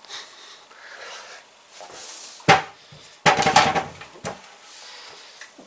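A sharp knock, then a short rattling clatter and another knock about a second later: juggling balls being handled, put down and picked up.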